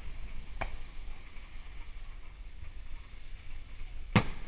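Aerial firework shells bursting: a fainter bang about half a second in, and a loud, sharp bang near the end.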